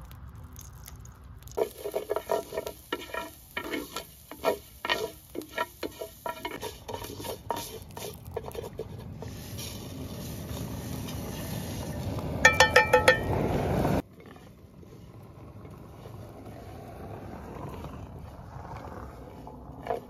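A wooden spoon knocking and scraping in an enamel-coated pan as bulgur and toasted vermicelli are stirred together, a quick clatter of strokes, then a growing sizzle of the grains frying. A brief squealing tone rings out near the middle, and the sound then cuts away suddenly to a quieter, steady sizzle.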